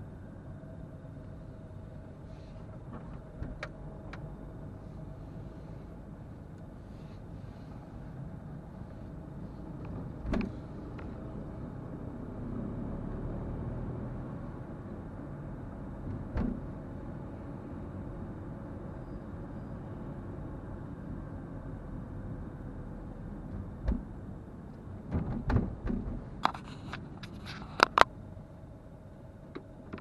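A car driving, with a steady low road-and-engine rumble. Occasional sharp knocks and clicks cut through it, and a cluster of louder ones comes near the end.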